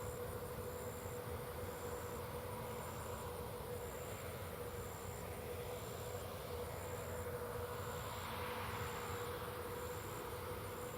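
Tractors and peanut pickers running steadily at a distance, a low even hum with a steady tone. Insects chirp in a regular high pulse over it.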